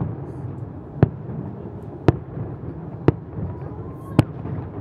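Fireworks salute shells bursting, a sharp bang about once a second, five in all, over a steady low background noise.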